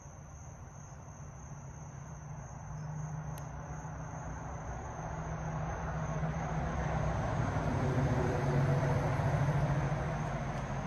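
Rumble of a passing motor vehicle, growing slowly louder to a peak about eight seconds in, then easing off a little.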